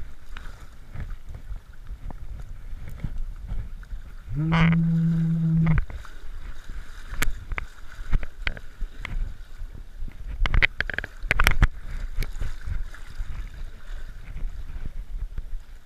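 Shallow water splashing and sloshing around a landing net holding a carp, with scattered small splashes and knocks and a louder cluster of splashes past the middle. About four seconds in, a steady low droning tone lasts about a second and a half.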